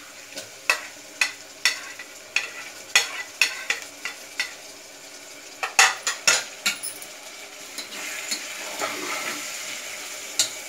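Metal spatula scraping and knocking against an aluminium pressure cooker, with a run of sharp clicks loudest about six seconds in, over oil sizzling. From about eight seconds in, a steadier sizzle builds as chopped tomatoes fry in the hot oil and spices while being stirred.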